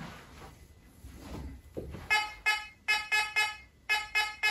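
Fisher F44 metal detector giving a run of short, same-pitched target beeps from about halfway in, as a ring is swept past its coil. It is the detection tone for a ring that registers a target ID of 44.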